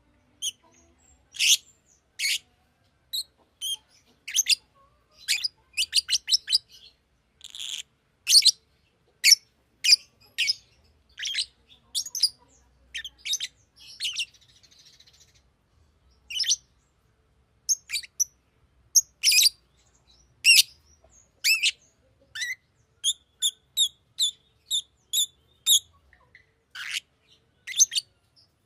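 Fischer's lovebird giving a string of short, sharp, high chirps at an uneven pace, with a run of evenly spaced chirps about three a second near the end.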